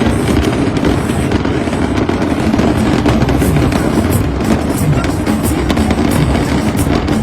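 Fireworks bursting and crackling in quick, unbroken succession, with music playing.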